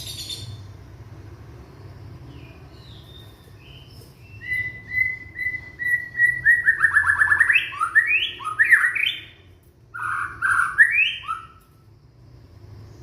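Young white-rumped shama (murai batu) singing: a run of repeated whistled notes that builds into fast, rising sweeping phrases, loudest in the middle and stopping near the end.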